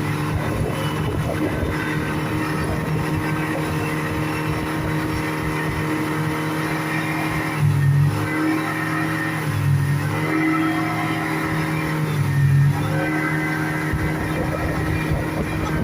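Speedboat engine running steadily at speed, its pitch dipping briefly and coming back up three times in the second half.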